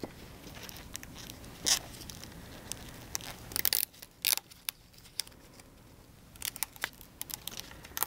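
Transparent film dressing being smoothed down and its backing peeled away by gloved hands: scattered crinkles and short peeling and rustling sounds in a few brief clusters.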